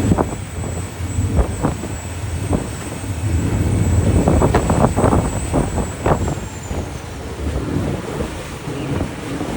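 Boat's engine running with a steady low rumble, mixed with irregular gusts of wind on the microphone and water noise. A thin high whine fades out about six seconds in.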